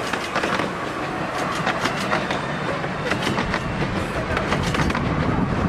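Miniature railway passenger carriages rolling past, their wheels clicking over the rail joints in a running clickety-clack over a steady rumble.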